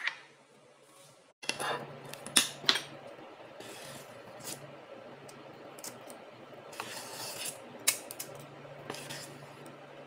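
Metal spring-handled batter scoop clicking and scraping as muffin batter is scooped and released into paper cupcake liners, with a few sharp clicks over a low steady hum.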